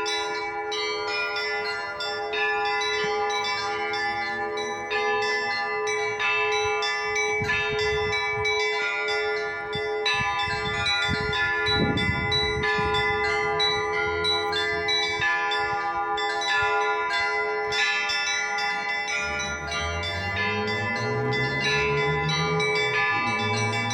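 Russian Orthodox church bells being rung in a continuous peal: smaller bells struck over and over in a repeating pattern over the sustained ringing of the larger bells.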